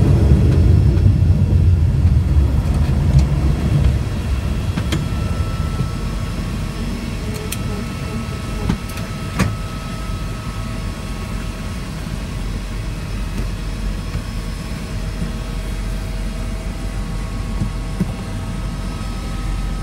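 Floatplane's piston engine and propeller running while taxiing on the water, heard from inside the cabin. It is loud for the first few seconds, then throttled back about four seconds in to a steady lower run, with a few light clicks in the cabin.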